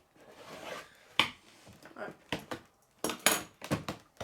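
Scissors opening a toy's plastic packaging: a string of sharp clicks and knocks with a brief rustle near the start.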